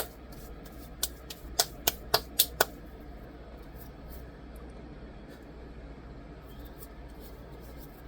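A quick run of light, sharp clicks and taps from hands handling the phone and screen-protector pieces on a table, about eight in the first two and a half seconds. After that, only a faint steady low hum.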